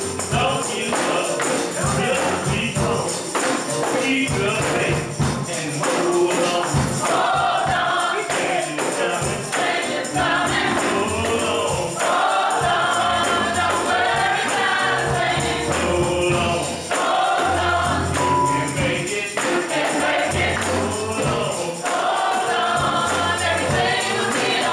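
Gospel choir singing together, with a tambourine shaken and struck in rhythm.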